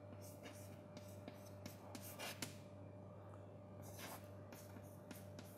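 Chalk writing on a chalkboard: a string of faint, irregular scratches and taps as the strokes go on, one sharper tap a little over two seconds in, over a steady low hum.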